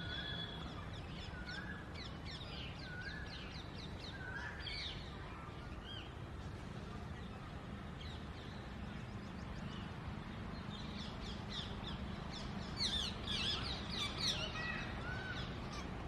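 Rose-ringed parakeet nestlings begging for food: quick, harsh chirping calls in bursts, scattered at first and loudest and densest near the end, over a steady hiss.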